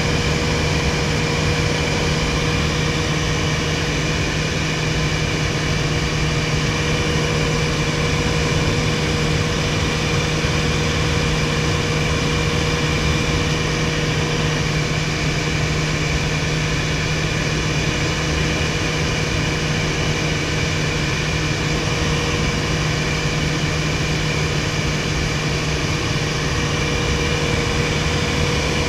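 Steady drone of a 1961 Piper PA-22-108 Colt in cruise, heard from inside its cabin: the 108-horsepower Lycoming O-235 four-cylinder engine and propeller running at a constant, unchanging pitch.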